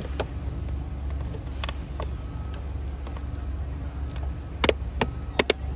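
Painted plastic mirror cap being pressed onto a Toyota Corolla's side-mirror housing: a handful of short sharp clicks and snaps as its tabs seat, the loudest a quick cluster near the end, over a steady low hum.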